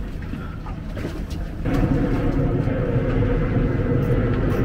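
A boat engine running steadily, setting in about a second and a half in and holding a constant low hum.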